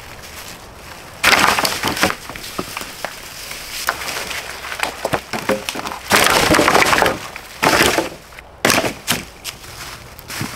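Dry sticks and branches being snapped and broken, cracking and splintering in several loud bursts, the longest about six seconds in.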